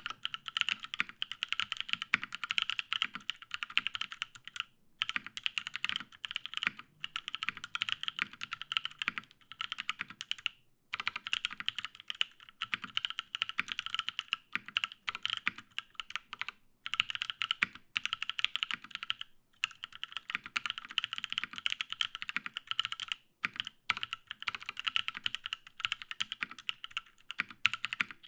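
Fast, continuous typing on a Matrix 8X V2.2 mechanical keyboard with lubed Paco switches, an aluminium plate and GMK keycaps, each keystroke a quick clack, with brief pauses between bursts.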